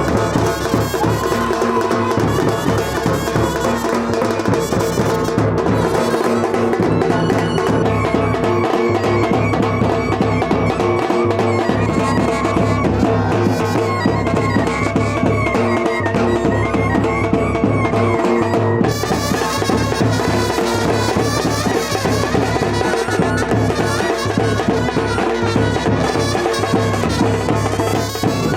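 Loud music with drums and a brass-like melody, playing without a break; the sound of the music changes about nineteen seconds in.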